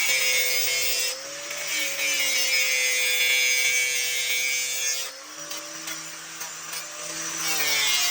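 A power tool with a motor running and working against material. Its pitch sags while it is loaded, with a strong hiss in stretches, the longest from about one to five seconds in.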